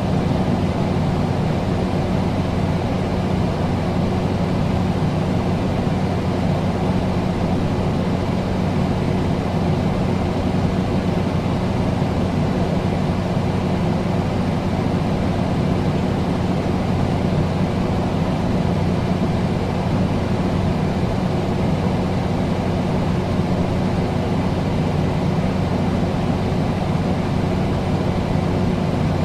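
Air conditioner running: a steady low hum under an even rush of fan noise.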